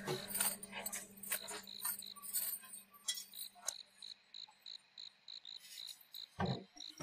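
Crickets chirping in a steady, even rhythm of about four chirps a second, with a faint low hum that stops about five seconds in and a few soft knocks in the first seconds.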